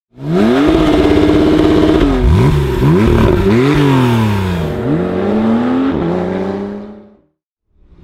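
Porsche 991.2 Carrera 4 GTS twin-turbo flat-six revving. The engine speed climbs and holds high for over a second, then rises and falls in several more revs before fading out near the end.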